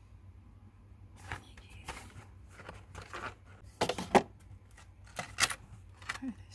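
Packaging being handled during an unboxing: scattered short rustles and light knocks, the loudest pair about four seconds in, over a low steady hum.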